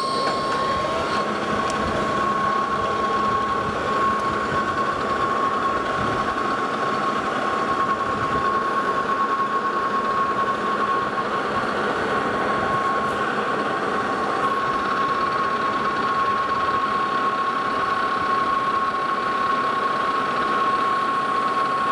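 Lodge and Shipley metal lathe running with a steady high whine while a 3/4-inch twist drill bores a dimple into the end of a spinning metal leveling foot.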